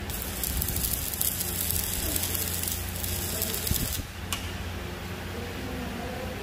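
Electric arc welding on a tractor rotary harrow door: a crackling, sizzling hiss for about four seconds that stops suddenly, then one brief crackle, over a steady low hum.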